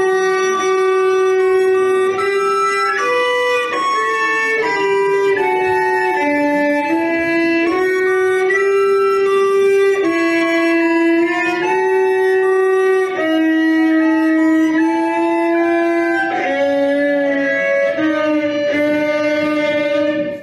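Recorder and violin playing a slow duet tune of held notes, moving from note to note every second or two.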